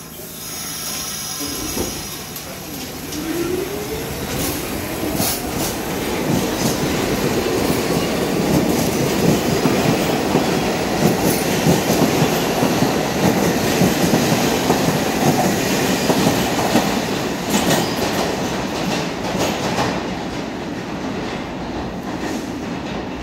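New York City Subway train pulling out of the station: the traction motors whine up in pitch as it starts to accelerate. It builds into a loud, steady rumble of wheels on rail, with a few sharp clacks, as the cars pass, then fades as the train clears the platform.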